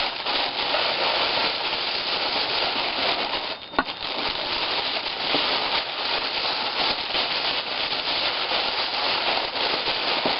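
Plastic packaging wrapping crinkling and rustling steadily as it is pulled and torn off, with a brief pause and a click about four seconds in.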